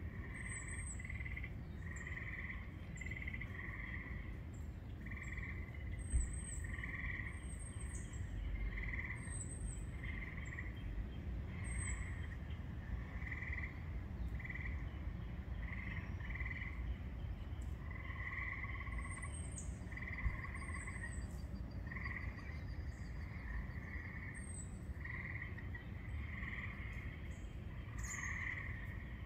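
Frogs calling in a chorus: short trilled calls repeating one or two times a second, with scattered high thin chirps above them and a low steady rumble underneath.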